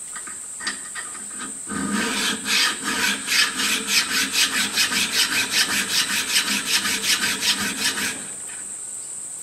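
Bronze slide-valve casting rubbed back and forth on a new flat file to true its face flat: a fast, even rasping at about five strokes a second that starts nearly two seconds in and stops a little over a second before the end.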